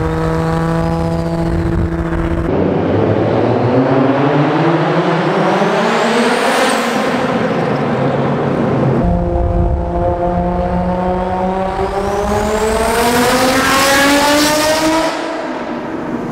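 Nissan Skyline R34 GT-R's twin-turbo RB26 straight-six accelerating hard in two long pulls, its note climbing steadily in pitch each time before dropping back, with a steady cruise at the start.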